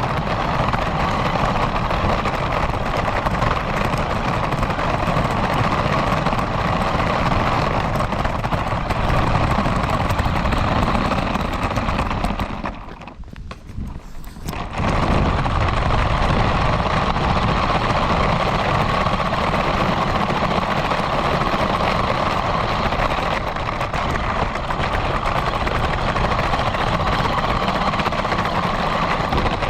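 Radio-controlled car driving, its motor and tyre noise picked up close by a GoPro mounted on the car. The noise drops away for about two seconds midway, then picks up again.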